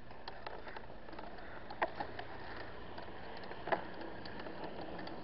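Steady car noise picked up inside a moving car, with two sharp clicks about two seconds apart.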